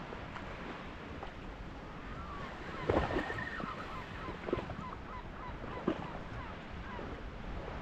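Calm sea lapping and wind on the microphone while a spinning reel is wound in. A few short knocks, and a brief high squeak about three seconds in.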